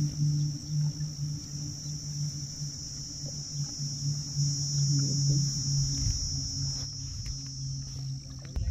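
Insects buzzing in a steady high-pitched drone, a little louder from about halfway through. Underneath it there is a low, unsteady hum, and a low rumble near the end.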